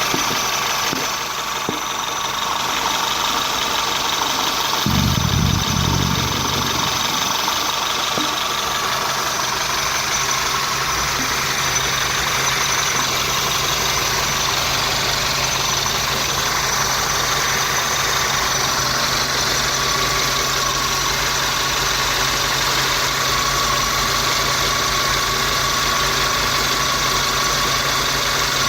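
Peugeot 508 engine idling with a steady high whistle from a pulley in the accessory drive belt, the sign of a worn idler or tensioner pulley; which pulley is not yet known. A brief low rumble about five seconds in.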